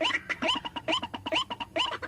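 White-breasted waterhen calling: a fast, unbroken run of short rising notes, about four a second.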